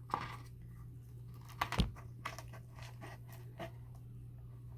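Person drinking soda from a cup: a few soft swallowing clicks, with one louder gulp about two seconds in, over a steady low hum.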